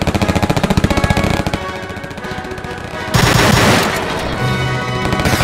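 Rapid machine-gun fire for about a second and a half over background music, then a loud blast about three seconds in as music continues.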